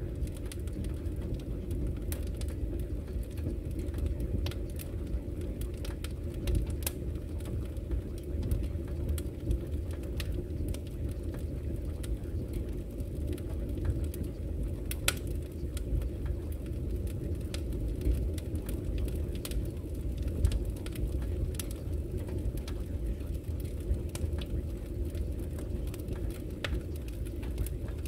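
Steady, muffled low rumbling noise with faint scattered ticks across it, the background ambience layer of a subliminal audio track.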